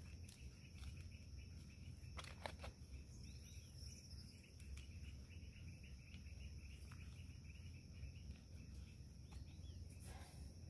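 Faint evening insect chirring, a steady pulsing trill, with a couple of faint taps about two seconds in.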